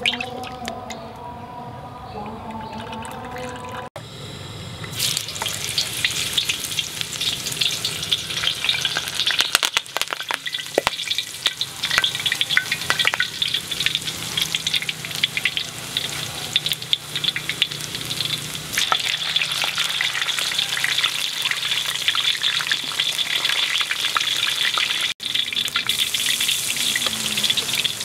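Food frying in hot oil in a wok: dense sizzling and crackling that starts about four seconds in and carries on steadily.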